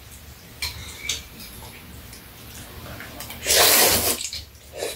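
A person slurping noodles in broth from a bowl: one loud, wet slurp about three and a half seconds in, lasting about a second, after a few faint clicks.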